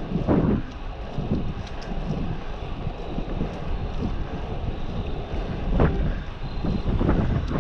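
Wind buffeting the microphone of a moving bicycle, a steady low rumble with a few short louder gusts.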